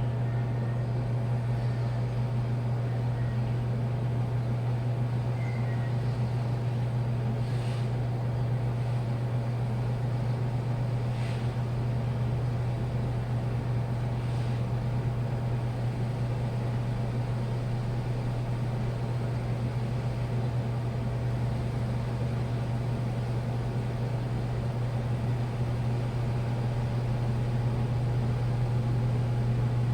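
Washing machine running with a steady low hum, with a few faint soft swishes in the middle and the sound growing slightly louder near the end.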